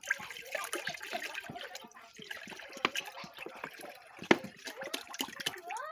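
Liquid splashing and trickling into a container while lemon juice is made, with scattered sharp knocks, the loudest about four seconds in.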